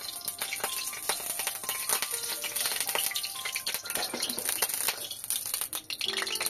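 Hot oil sizzling in a pan with many sharp crackles and spits, heated for tempering whole spices and chillies for dal.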